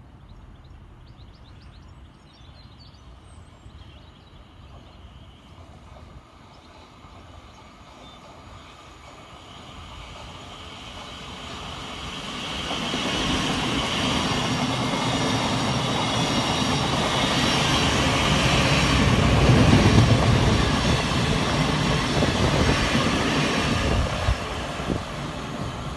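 South Western Railway Class 707 electric multiple unit approaching and passing along the platform, the sound of its wheels on the rails growing from a low hum to its loudest about three-quarters of the way through, then dropping suddenly as it moves away.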